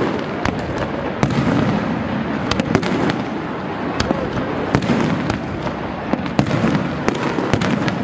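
Aerial fireworks going off in rapid succession: a continuous din of shell bursts with many sharp, irregular bangs and crackles.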